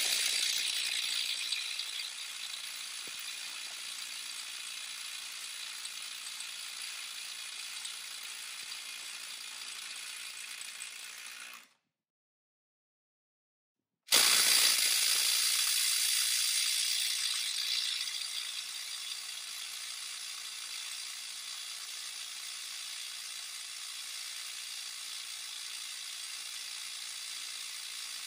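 DeWalt DCF923 ATOMIC 20V 3/8-inch compact impact wrench hammering continuously on a nut torqued to 450 foot-pounds, working at the top of its power and failing to break it loose. The hammering breaks off about twelve seconds in, resumes two seconds later, and each run is loudest just after it starts.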